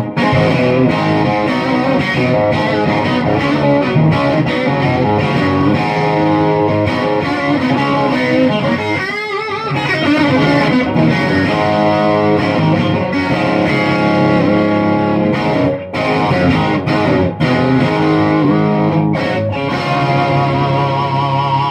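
Electric guitar played through the bridge pickup and an overdriven amp: a continuous run of notes and chords, with a brief warbling pitch bend about nine seconds in.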